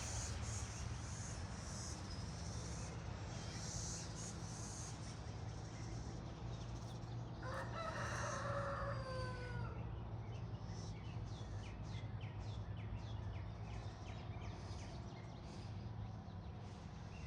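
A rooster crowing once, about eight seconds in: one long call of a couple of seconds that ends with a falling tail.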